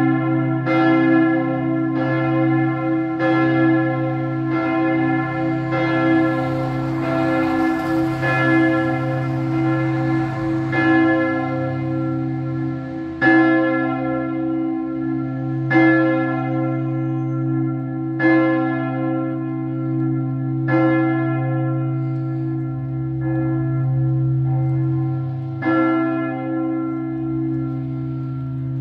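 Church tower bells ringing, with strikes at first about once a second that thin out to one every two or three seconds, so the peal is slowing as it winds down. A deep, steady bell hum carries between the strokes.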